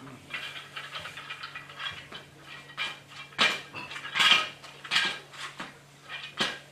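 Wooden bead-maze toy being rattled and knocked on a tile floor: beads clacking on the wire loops, first a run of small rattles, then several sharp, loud clatters from about halfway through.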